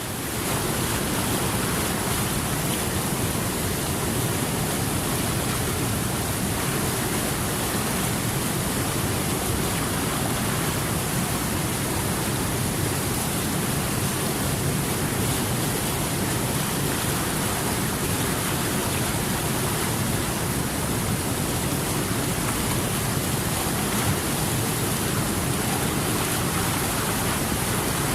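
Water rushing steadily, a constant, even sound with no breaks or changes.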